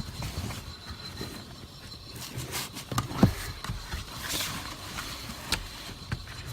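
Scattered clicks and knocks of hands working at plastic clips and trim under a minivan's dashboard, over a low steady rumble.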